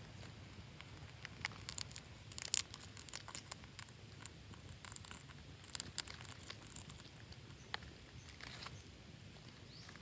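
Parakeets' beaks and claws scratching and picking at bark and dry leaves: irregular small clicks and crackles, busiest in the first half.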